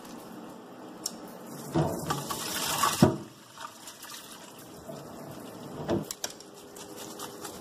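Water poured from a stainless steel pot through a plastic colander into a metal sink, splashing louder for about a second and ending in a sharp knock about three seconds in, then trickling as the soaked fried bean curd sticks drain.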